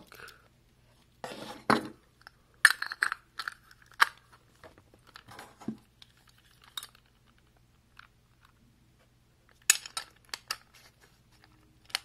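Handling noise from a metal keypad deadbolt lock: scattered clicks, clinks and knocks as the cylinder, tailpiece and stainless keypad housing are turned over and knocked together in the hands, with quiet gaps between.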